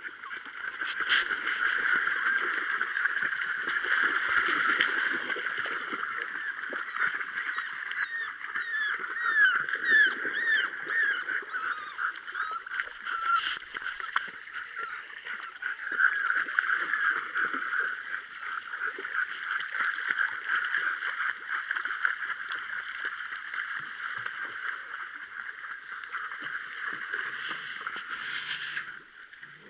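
Shallow stream water rushing and splashing around dogs wading through it. In the middle there is a string of short, high, arching cries, a few a second, for about four seconds.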